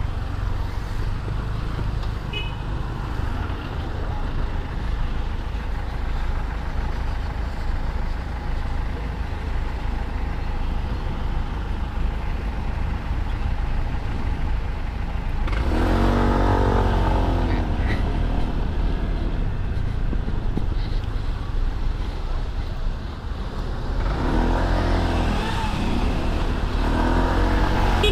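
Honda SH150i scooter's single-cylinder engine running under steady road and wind noise while riding in traffic. It speeds up twice with a rising pitch, about halfway through and again near the end.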